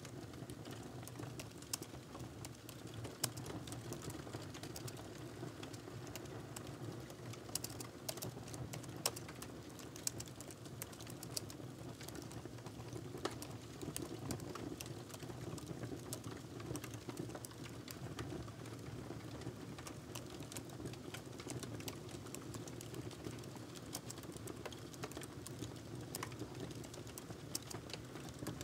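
Typing on a laptop keyboard: soft, irregular key clicks, over a steady low hum underneath.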